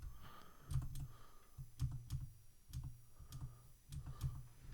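Computer keyboard keys being struck in short, irregular bursts of a few keystrokes, each with a light click and a low thud.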